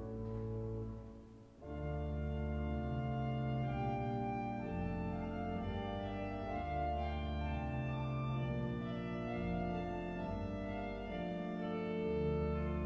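Durham Cathedral's pipe organ playing sustained chords over a deep pedal bass. About a second in, the chord breaks off and dies away briefly before the full sound comes back and holds.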